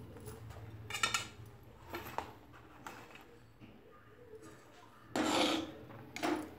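Metal spoon clinking and scraping against a metal kadhai while stirring thick besan zunka: a few light clinks in the first three seconds, then a louder scrape about five seconds in and a shorter one just after six.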